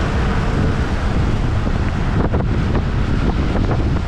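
Wind buffeting the microphone of a moving motor scooter as a steady low rumble, over the hiss of tyres on a wet road.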